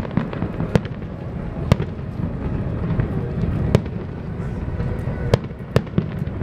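Aerial fireworks shells bursting overhead: about six sharp booms at irregular intervals, over a steady low background noise.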